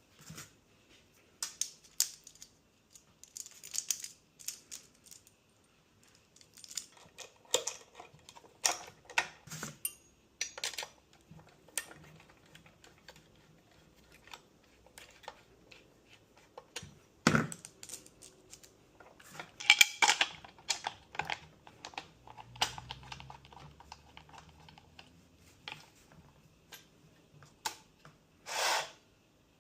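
Scattered clicks, taps and short rustles of a new chainsaw and its packaging being handled during unboxing, with a denser run of clicks about two-thirds in and a longer rustle near the end.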